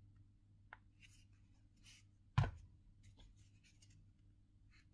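Handling of electric vacuum suction cups on a metal worktable: light rustling and a short click near the start, then a single loud thud about two and a half seconds in as a suction cup is set down on the table.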